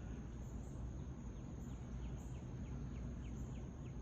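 Outdoor background sound: a steady low rumble with a faint high, steady trill, and a quick run of faint short chirps through the middle.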